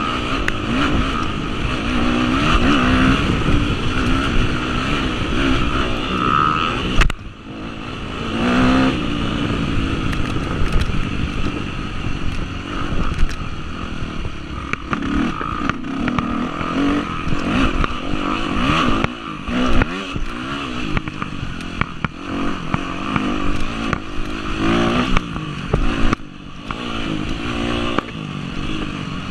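2003 Yamaha YZ250F single-cylinder four-stroke dirt bike engine being ridden hard, its pitch rising and falling over and over as the throttle is worked. It cuts off briefly about seven seconds in, then picks back up.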